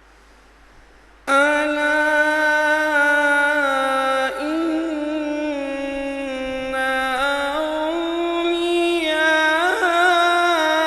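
A qari's voice in melodic Quran recitation (tilawat), drawing out a long vowel in one sustained, ornamented melodic line with slow pitch turns. It starts abruptly about a second in, after a moment of faint hiss.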